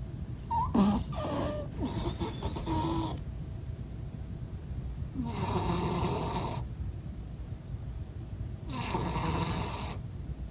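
Flat-faced Exotic Shorthair cat snoring loudly in its sleep. There are three snoring breaths, about three to four seconds apart.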